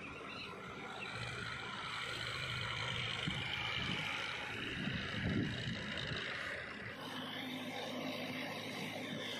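Sonalika DI 60 tractor's diesel engine running steadily under load while its rotavator puddles a flooded paddy field, with the churning of mud and water mixed in. The sound changes character about seven seconds in.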